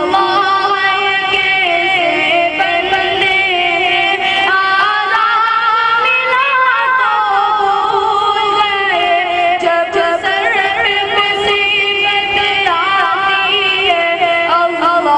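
A boy singing a naat, a devotional Urdu poem in praise of the Prophet, solo in a high voice. He draws out long notes and decorates them with quick wavering turns.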